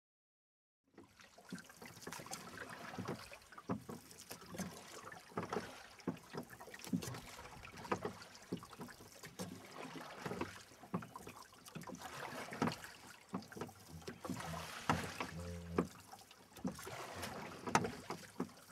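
Small boat being rowed on a river: faint oar knocks and splashes at irregular intervals, about one a second, over a steady hiss.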